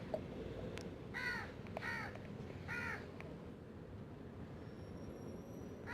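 A crow cawing three times in the first half, each call a short arched note, with a few faint clicks around it.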